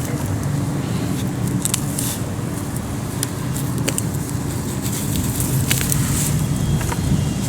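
Weeds being pulled and rustled by hand, with scattered crackles and snaps over a steady low rumble.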